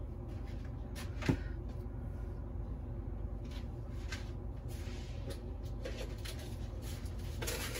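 A steady low hum with one sharp clack about a second in, and a few faint soft handling noises.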